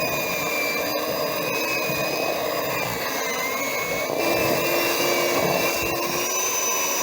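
Electric mixer running steadily as it beats peanut butter cookie dough in a large bowl. Its motor whine sags slightly about three seconds in, then picks up again.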